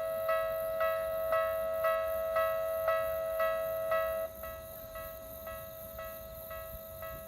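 Electronic level-crossing alarm with the Tokyu-type tone, chiming about twice a second. About four seconds in it drops noticeably quieter and keeps chiming.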